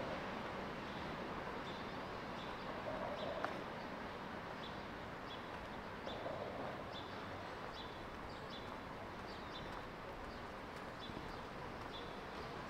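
Outdoor city street ambience while walking: a steady background hum with faint light ticks recurring about twice a second.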